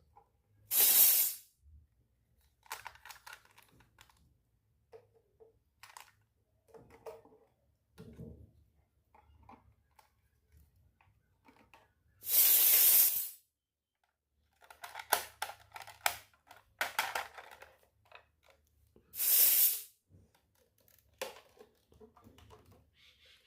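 Small plastic toy kitchen pieces being handled: scattered light clicks and taps, with three short loud hissing or rustling bursts, each about a second long.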